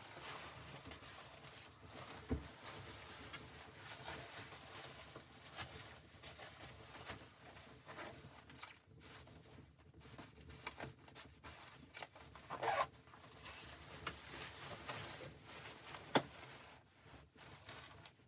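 Faint, continuous rustling and handling noise with many small clicks, and a few louder knocks: one about two seconds in, one about two-thirds of the way through and one near the end.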